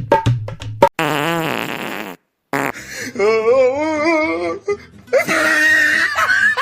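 Fart sound effects: a wavering, buzzy fart about a second long, then after a short gap a longer one of over two seconds with a warbling pitch, followed near the end by a noisier, hissy stretch.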